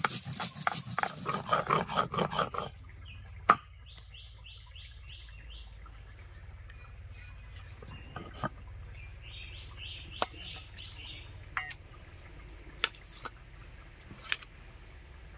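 Spices being ground into a wet paste on a stone slab with a grinding stone (sil-nora): quick rhythmic scraping strokes that stop about three seconds in. After that a bird chirps in two short runs of repeated notes, with a few sharp clicks, the loudest just after the grinding stops.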